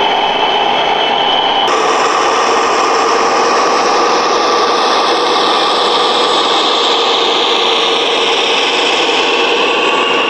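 Radio-controlled model trucks running: a steady, loud mechanical hiss and whine with a few faint tones drifting slowly in pitch. The sound shifts abruptly about two seconds in.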